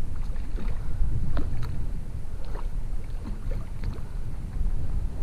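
Low wind rumble on the microphone, with scattered faint splashes and ticks from a hooked trout being played at the surface on a fly rod.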